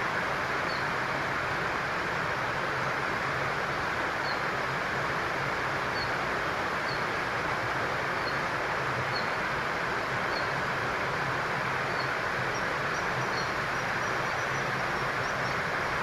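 Steady rushing outdoor background noise at an even level, with faint short high bird chirps about once a second.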